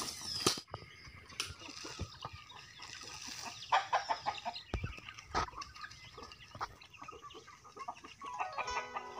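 Native chickens clucking in a pen, with scattered rustles and crackles in dry leaf litter. Music comes in near the end.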